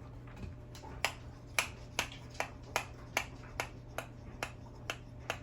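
A steady series of sharp, evenly spaced taps or knocks, about two to three a second.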